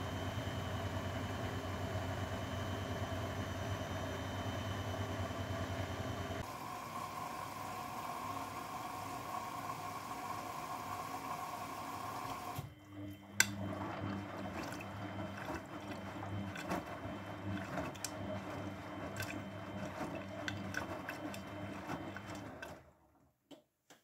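Grundig GWM4762WE20 front-loading washing machine mid-wash: a steady hum of the machine with water running for the first half, then the drum turning the laundry through the wash water, sloshing with scattered clicks, until the sound stops about a second before the end.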